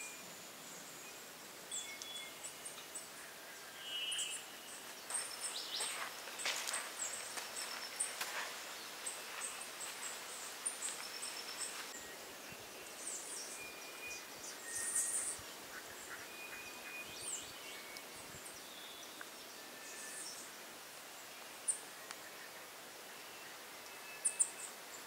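Wild birds in tropical mountain forest calling and chirping: many short, high calls over a steady background hiss, busiest in the first half, with a few sharp louder chirps near the end.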